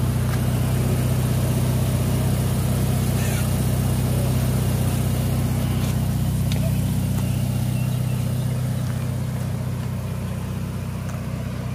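Ferrari sports car's engine idling with a steady, low even hum, easing slightly quieter near the end.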